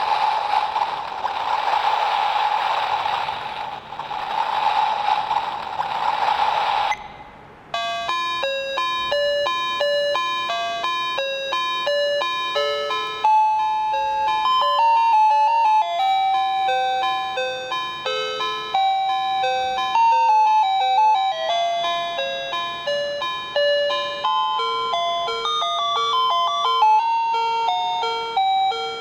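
LuazON LB 10 star-projector alarm clock playing its built-in melodies through its small speaker. For about the first seven seconds there is a hissing, noise-like track that swells twice. It cuts off, and a simple electronic melody of clean, chime-like beeping notes follows.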